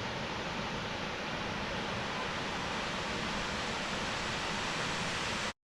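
Steady rushing roar of a waterfall, even and unchanging, cut off abruptly near the end.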